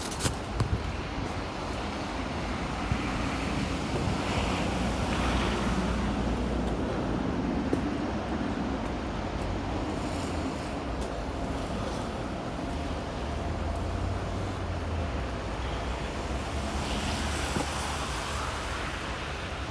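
Snowstorm wind buffeting the microphone: a steady rushing noise with a low rumble, and a few sharp clicks at the very start.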